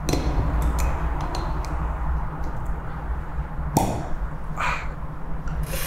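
A corkscrew working the cork out of a bottle of barrel-aged beer: a few small clicks and creaks, then one sharp pop about four seconds in as the cork comes free, followed by a brief hiss of gas. A steady low hum underlies it.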